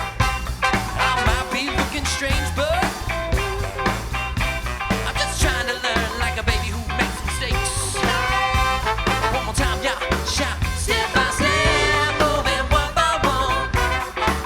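Live soul band playing an instrumental passage with horns, bass and drums keeping a steady beat.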